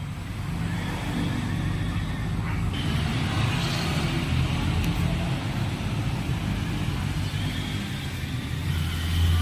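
Car engine running steadily with a low, even hum that grows louder near the end.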